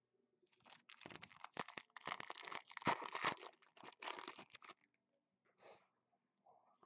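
Plastic wrapper of a Prestige football card pack being torn open and crumpled, a dense crinkling and crackling that starts about half a second in and stops near five seconds. A few faint rustles of the cards follow.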